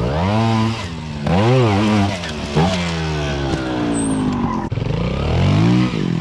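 Beta trials motorcycle engine revved in quick throttle blips, its pitch swelling up and dropping back several times, with one longer slow fall in pitch midway as the throttle is rolled off.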